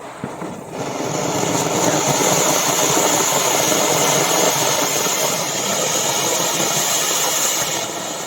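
A ground firework, such as a flowerpot fountain or spinner, burning with a loud steady hiss and crackle. It starts about a second in, runs for about seven seconds, and fades near the end.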